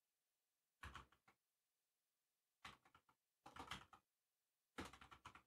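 Faint computer keyboard typing, in four short bursts of key clicks.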